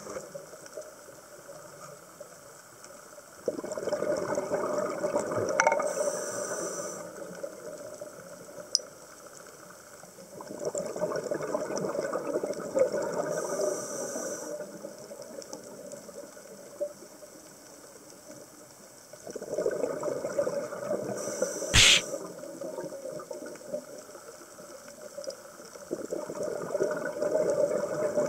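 Scuba diver breathing through a regulator underwater: a rush of exhaled bubbles about every seven to eight seconds, each ending with a short hiss. One sharp knock about two-thirds of the way through.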